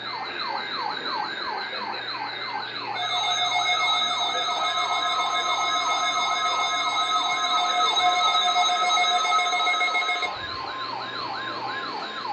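Electronic siren in a fast yelp, its pitch sweeping up and down about three times a second. From about three seconds in until about ten seconds in, several steady tones sound over it and it gets louder, then they cut off and the yelp carries on alone.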